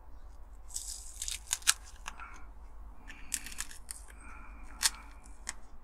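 Masking tape being peeled off a small diecast toy car's painted body and handled: irregular sharp crackles and rustling, with two louder snaps about a second and a half in and near the end.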